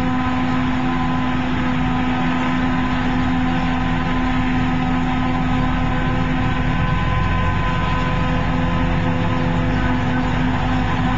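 Self-propelled forage harvester picking up and chopping grass, with a New Holland tractor pulling the silage trailer alongside: a steady machine drone with several even tones over it. About seven seconds in one of the lower tones fades and the deep engine sound grows fuller as the machines come closer.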